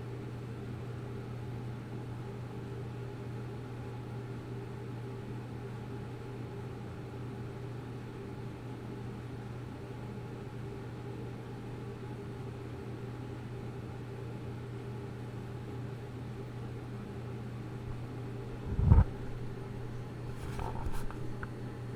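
Steady low hum of background noise, broken about nineteen seconds in by one loud thump, followed by a few softer knocks near the end.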